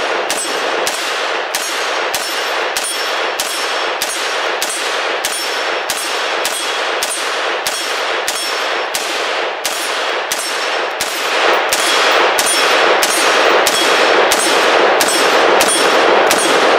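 AR-15 rifle firing .223 rounds in steady semi-automatic fire, about three shots every two seconds, each hit followed by the ringing clang of an AR500 steel plate target.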